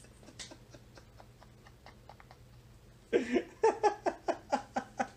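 A man laughing: after a few faint clicks, a burst of laughter starts about three seconds in and runs on as a quick series of short "ha" pulses, about four or five a second.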